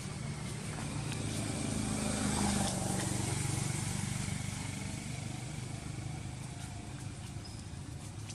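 Engine of a passing motor vehicle: a low hum that grows louder to a peak about two and a half seconds in, then slowly fades away.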